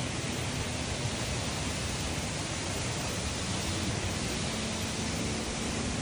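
Waterfall's plunging water: a steady, even rush of falling water close by.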